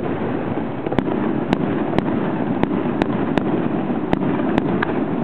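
Aerial firework shells bursting overhead: about nine sharp cracks in quick, irregular succession, over a steady background rumble.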